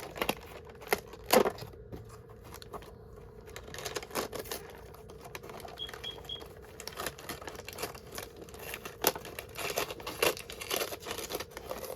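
Paper and cardboard packaging rustling and crinkling, with scattered light clicks and taps, as a small wrapped item is handled and unwrapped.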